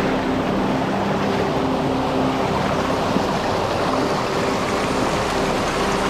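Mountain stream rushing and splashing over rocks in small cascades, a steady, unbroken wash of water. Faint sustained low tones sound beneath it.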